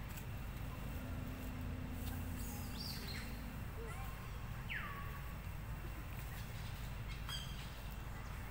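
Outdoor forest ambience with a steady low rumble and a few short bird calls. The clearest are two falling whistled notes, about three seconds in and again a little before five seconds.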